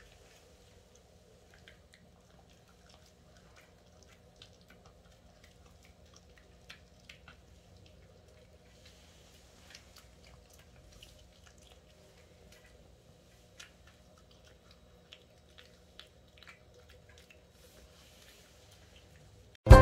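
Shih Tzu chewing a dog chew treat: faint, irregular crunching and clicking of teeth and wet mouth sounds, a few sharper clicks now and then.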